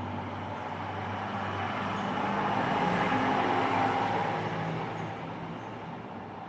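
A road vehicle passing by: engine and tyre noise swells to a peak about three to four seconds in, then fades away.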